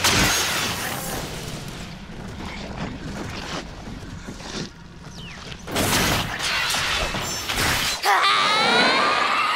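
Anime battle sound effects: a heavy blast at the start that fades into a rumble, and a second loud crash about six seconds in. Near the end comes a girl's long shrill scream.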